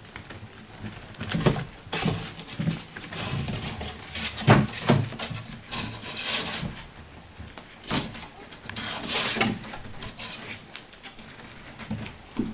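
Sheltie puppies moving about on a hard floor: irregular scuffling and pattering of paws and claws, with scattered knocks.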